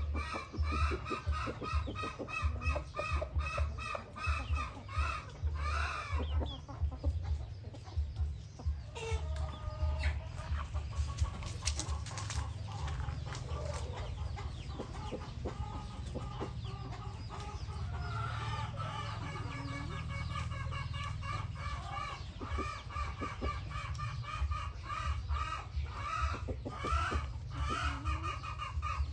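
Chickens clucking: a run of short, repeated clucks from hens and a rooster, sparser for a while in the middle, over a low, uneven rumble.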